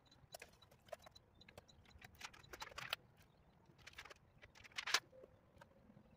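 Faint, irregular taps and scuffs of someone working on a camper trailer's roof from a stepladder, with a cluster of knocks about two to three seconds in and the loudest ones near the end.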